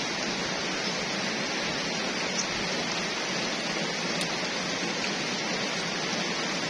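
Steady rain falling on wet ground and puddles, an even, unbroken hiss.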